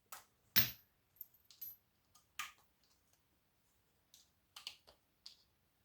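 A few scattered light clicks and knocks of small scrap metal pieces being handled: the strongest about half a second in, another near two and a half seconds, then a few faint ones near the end.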